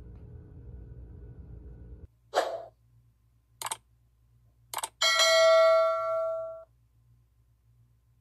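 Sound effects of a subscribe-button animation: a short whoosh, two mouse clicks and then a bell chime ringing for about a second and a half. Before them a steady low hum cuts off about two seconds in.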